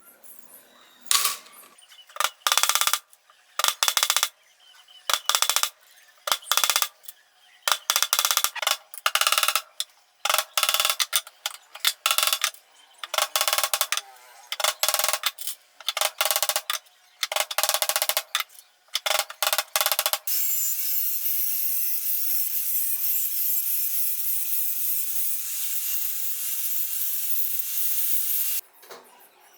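Workshop hand work: a run of short, irregular rasping strokes, like scraping or sawing, then a steady hiss lasting about eight seconds that stops suddenly near the end.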